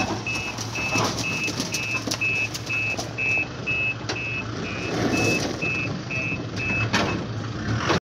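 Truck reversing alarm beeping about twice a second over a low, steady engine hum; the beeps stop about a second before the end, followed by a sharp knock.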